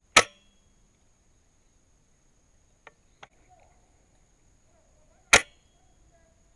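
Two sharp cracks of an airsoft sniper rifle firing, about five seconds apart, with two faint clicks between them.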